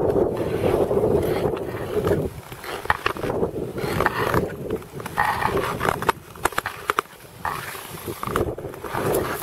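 Nordic touring skate blades on lake ice: a loud, steady rumbling glide for about two seconds, then quieter strokes with short scrapes and sharp clicks.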